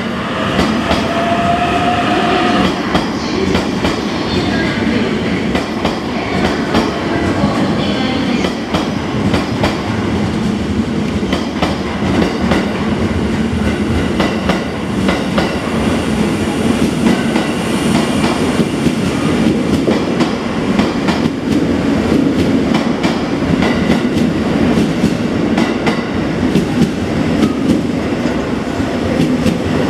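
Electric limited-express trains in a station under a platform roof. In the first few seconds a train on the next track pulls away with a rising motor whine. Then a JR 651 series train rolls in along the platform with a steady rumble, its wheels clacking over the rail joints.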